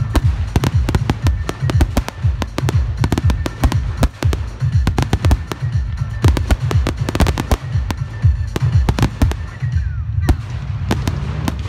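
Aerial firework shells bursting in rapid succession, a dense run of sharp bangs several per second over a deep rolling rumble, thinning briefly near the end.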